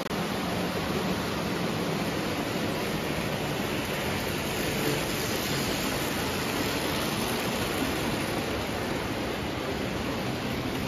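Lionel O gauge electric toy trains running on three-rail steel track: two steam locomotives with freight cars making a steady rushing run noise of metal wheels on the rails and electric motors.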